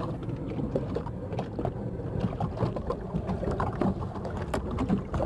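Lake water lapping against a small boat's hull while a trotline is hauled in hand over hand, with scattered light knocks and rubbing of the line and gloves against the boat's edge.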